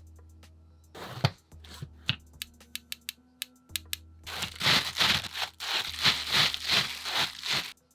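Hand work on model kit parts: scattered light clicks and taps. From about four seconds in comes a run of rapid scraping strokes, about four or five a second.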